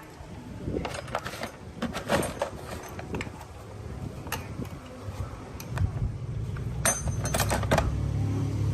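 Small metal parts and tools clicking and clinking in irregular handling, with a low steady hum coming in about halfway through.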